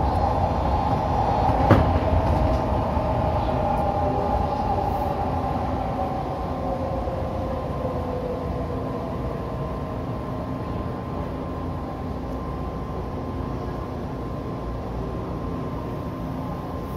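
Odakyu 2000 series electric train running through a tunnel, heard from inside the driver's cab. Under the steady rumble, its motor whine falls in pitch over the first several seconds as the train slows into the underground platform. A single sharp knock comes about two seconds in.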